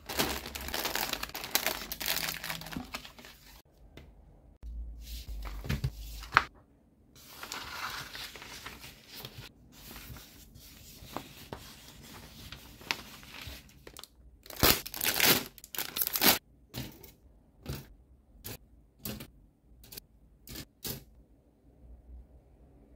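Cellophane bags around a plastic model kit's runners being handled and torn open, with a dense crinkling and tearing. Near the end comes a string of short sharp crinkles, about two a second.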